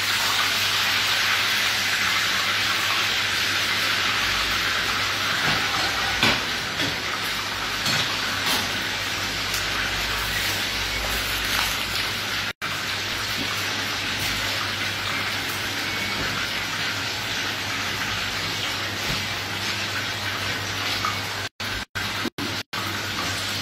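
Hot oil sizzling in a frying pan on the stove, a steady hiss. The sound cuts out completely for an instant about halfway through and four times near the end.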